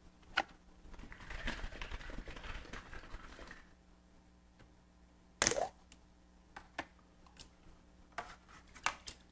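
Small plastic cup of slip being handled at a worktable: soft scraping for a couple of seconds, then one sharp knock as the cup is set down about five and a half seconds in, followed by a few light clicks.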